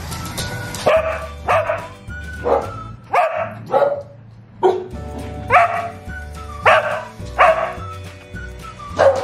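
A dog barking in short barks, about a dozen of them, singly and in pairs, over upbeat background music.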